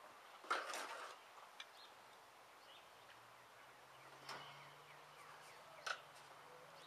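Faint outdoor sounds: a short rustle about half a second in, a few light clicks, and a low steady buzz that starts about three seconds in.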